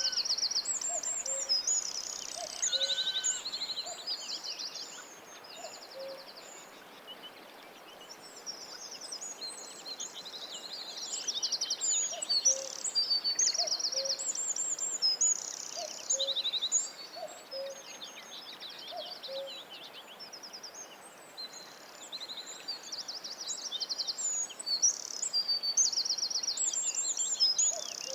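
Several birds singing at once, a dense run of rapid high chirps and trills, with short low notes repeating every second or so underneath.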